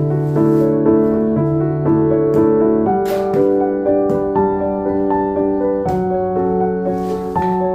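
Background music: gentle piano playing a slow melody over sustained chords.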